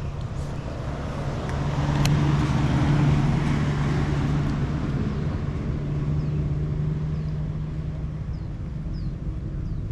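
A motor vehicle's engine passing by: a steady low hum that grows louder over a couple of seconds, then slowly fades away.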